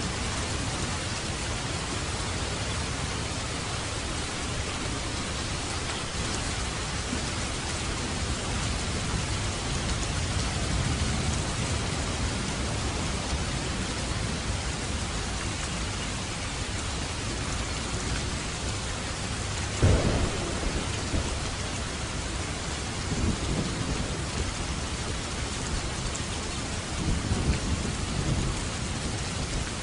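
Steady heavy rain, with thunder: a sharp crack about twenty seconds in, followed by low rumbles twice more near the end.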